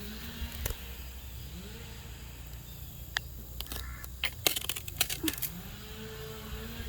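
Scattered sharp clicks and knocks, bunched about four to five seconds in, over a low rumble.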